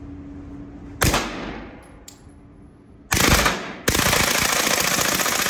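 Integrally suppressed SIG MPX 9mm carbine firing full auto in three bursts: a short one about a second in, another about three seconds in, and a longer one right after it. Each burst leaves a reverberant tail.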